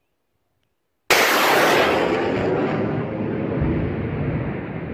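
Rocket fire from a BM-21 Grad 122 mm truck-mounted multiple rocket launcher. A sudden loud blast comes about a second in, followed by a long rushing roar that slowly fades.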